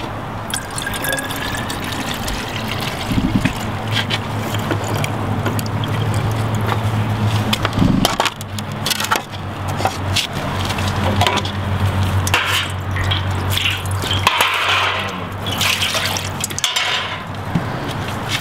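Water splashing and pouring as a wet-plate ambrotype glass plate is rinsed and dunked in a tray and tub of water, with small clinks of glass and hands. The splashing grows busier past the middle.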